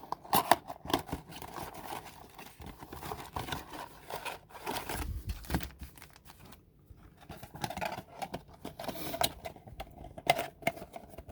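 Trading-card packs and a cardboard blaster box being handled and sorted: irregular crinkling and rustling of pack wrappers with scattered sharp clicks and taps.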